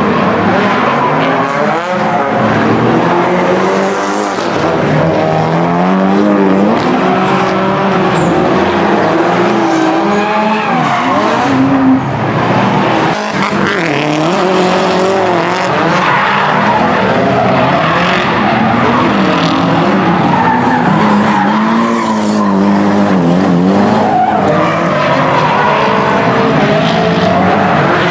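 Nissan S13-chassis drift cars sliding through corners: engines revving, the note rising and falling repeatedly with the throttle, while the tyres squeal and skid.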